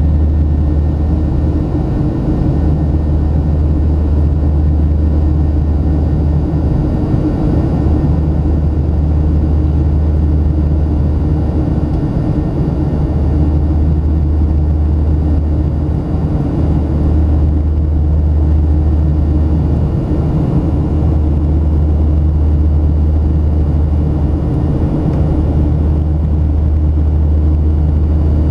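Steady low rumble of jet engines and rushing air heard inside an airliner's cabin during the climb after takeoff.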